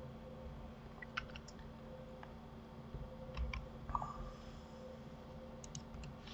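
Scattered clicks of a computer mouse and keyboard, a few short taps in small clusters, over a faint steady hum.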